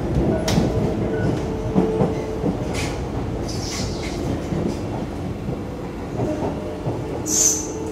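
Interior running noise of a Kawasaki–CRRC Sifang C151B metro train, heard from inside the carriage as it comes into a station: a steady rumble with rail clicks and a faint steady whine, and a short hiss near the end.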